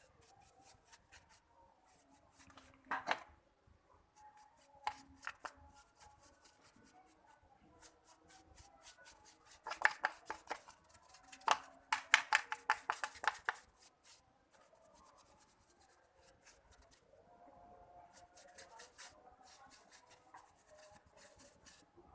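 Hand work on a motorcycle's rear drum brake parts: bursts of rapid scraping and clicking strokes, the busiest around ten and twelve seconds in.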